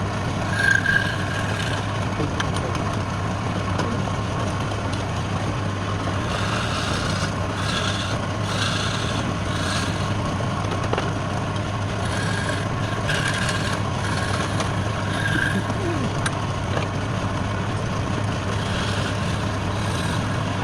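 Woodturning lathe running steadily with a constant low hum, with short higher-pitched bursts now and then, in two clusters around the middle.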